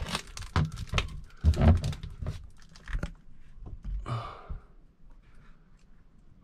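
Knocks, clicks and low thumps of someone moving about and handling things inside a small wooden boat cabin, busiest in the first three seconds. A short airy rush of noise comes about four seconds in, then a few faint ticks.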